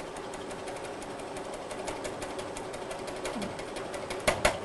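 Milling machine's end mill cutting a shoulder into a PVC block: a steady spindle hum with a fast patter of small ticks as chips are thrown off. Two sharp clicks come close together about four seconds in.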